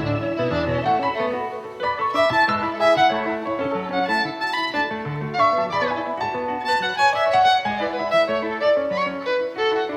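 Live band playing an instrumental passage: a busy run of quickly changing notes over a bass line, with no singing.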